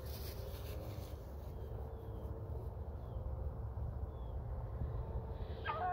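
Beagles baying faintly in the distance while running a rabbit, under a steady low rumble, with one louder bay near the end.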